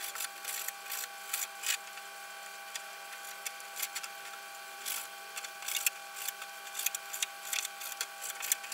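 Kitchen knife cutting raw chicken into small pieces on a plastic cutting board: irregular light taps and clicks of the blade on the board, over a faint steady hum.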